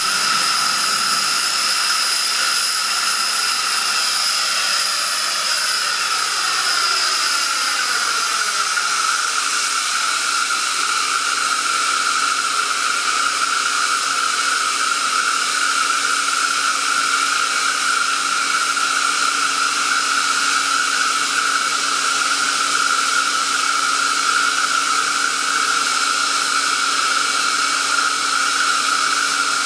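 Kaeser ESD 441 SFC variable-speed oil-injected rotary screw air compressor running loaded at about 11.8 bar: a steady, loud rush of air and machine noise with a high whine. The pitch shifts over the first eight seconds or so as the drive changes speed, then holds steady.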